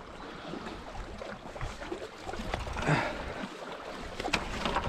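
Wind rumbling on the microphone by the shore, with a rustling swell about three seconds in and two sharp clicks near the end, typical of handling gear.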